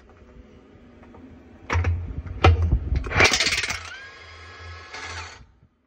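Cordless impact wrench hammering on a wheel lug nut in several loud rattling bursts, then running with a steady whine for about a second and a half before stopping, as the nut breaks loose and spins off.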